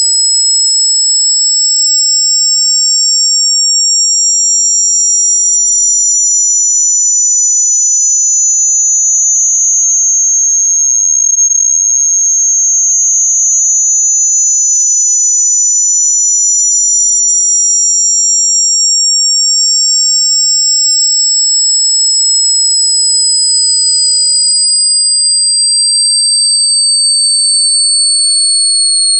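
Two loud, high-pitched electronic tones of an anti-mosquito beep sound effect, gliding slowly in small steps: one falls while the other rises until they meet about halfway through, then they cross and draw apart again.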